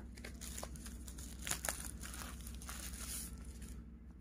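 Thin clear plastic bag crinkling as a mobile phone is taken out of it, with a few sharper crackles in the middle, stopping a little over three seconds in.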